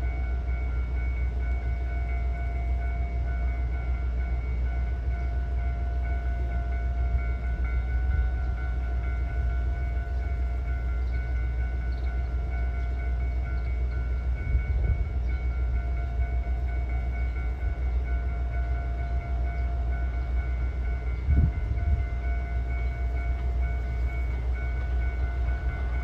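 Train at the station giving a steady low rumble with a faint, even whine held over it. A couple of short knocks come near the end.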